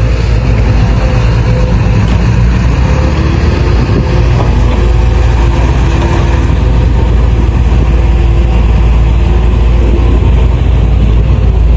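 Heavy diesel engines of a loaded dump truck and an excavator running steadily, a loud low rumble with a faint whine on top.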